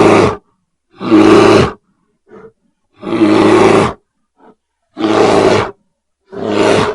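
Grizzly bear roaring: five loud roars of about a second each with short silent gaps, and two brief faint grunts in the pauses.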